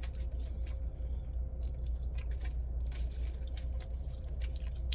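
Scattered wet clicks and crackles of someone chewing a sub sandwich, over a steady low rumble inside a car.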